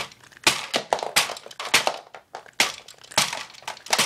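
Small plastic toy figures and a plastic treehouse playset knocking and clattering together as they are knocked about, in an irregular run of about a dozen quick, sharp knocks.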